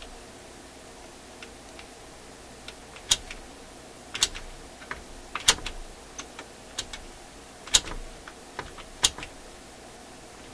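Metal levers and linkages of a Marconi fold-out record player's changer shut-off mechanism clicking and clacking as they are moved by hand, an irregular run of sharp clicks with the loudest about three, five and a half, eight and nine seconds in. The mechanism is being worked to check whether it falls back freely against its spring drag so the player can switch itself off.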